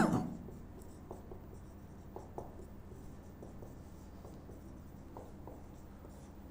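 Marker pen writing on a whiteboard: faint, irregular short squeaks and scratches as letters are drawn. A short sharp sound right at the start is the loudest moment.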